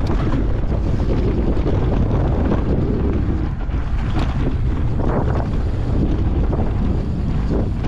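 Wind buffeting the microphone over the steady rumble of a mountain bike's knobby tyres rolling down a dirt singletrack, with a few brief rattles as the bike goes over bumps.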